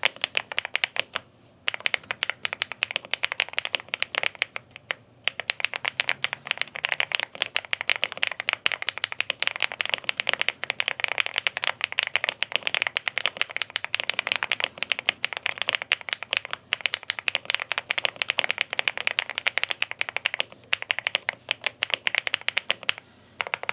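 Typing on an AULA S98 Pro gasket-mounted mechanical keyboard with pre-lubed linear switches and PBT keycaps: a fast, continuous stream of keystrokes, with brief pauses about one and a half and five seconds in.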